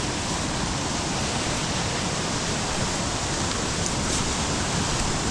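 Small forest waterfall, a steady rush of falling water with no change in level.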